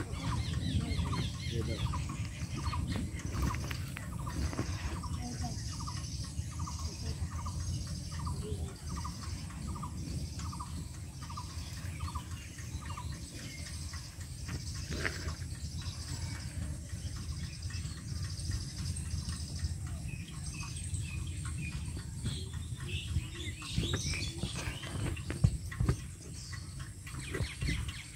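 A bird calling over and over, a short note about twice a second for most of the stretch, then falling off, over a steady low outdoor rumble. A few brief knocks come near the end.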